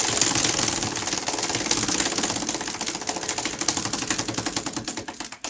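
Large prize wheel spinning, its pegs ticking rapidly past the pointer in a fast clatter that gradually slows and spaces out as the wheel loses speed.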